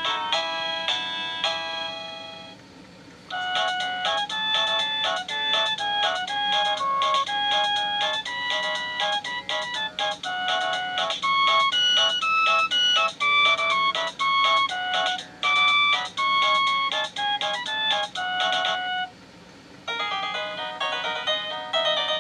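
Satu Brown wireless doorbell receiver playing its built-in electronic chime tunes. One tune ends about two seconds in, a melody of quick electronic notes runs for about fifteen seconds, and after a short pause another tune begins near the end.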